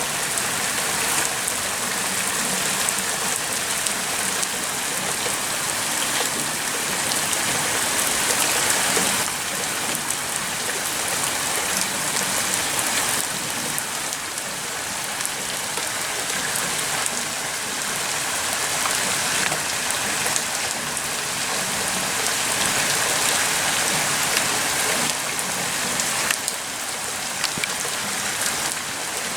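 Rain pouring down steadily, an even hiss of falling drops with no let-up.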